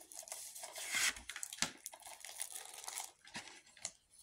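Rustling and crinkling of packaging being handled, with short clicks and scrapes, for about three seconds, then a few scattered clicks.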